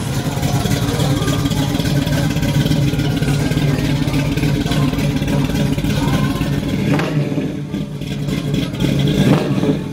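Classic Ford Mustang fastback's engine running at a steady idle, its exhaust note even, without revs.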